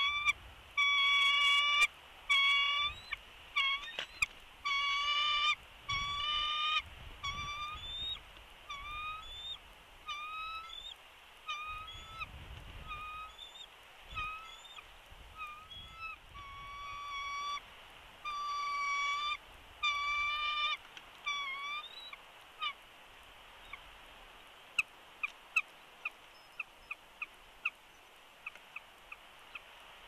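Bald eagle calling, a long chattering series of high, thin piping notes, as its mate flies in to the nest. The calls stop a little over 20 seconds in and give way to a run of short ticks.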